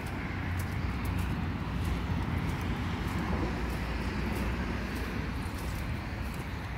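Steady rumble of road traffic, swelling about two seconds in as a vehicle passes and then easing off.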